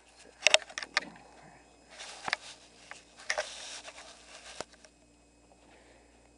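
Clicks and scraping of a Spyder Xtra paintball marker being handled as it is taken apart: a quick cluster of clicks near the start, then single clicks with short scrapes through the middle.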